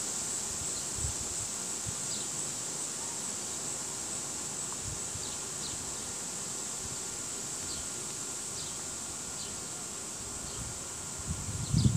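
Steady high-pitched drone of insects, with faint short chirps now and then. A few low thuds come near the end.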